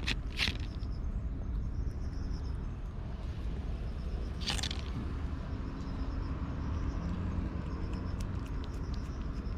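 Cat eating dry food: crunching and chewing in short bursts, with scattered small clicks, over a steady low background rumble.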